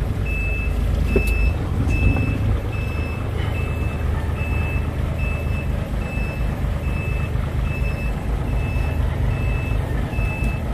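Truck reversing alarm beeping evenly, about two high beeps a second, over the steady low rumble of the truck's engine. The alarm sounds because reverse gear is engaged and the truck is backing slowly.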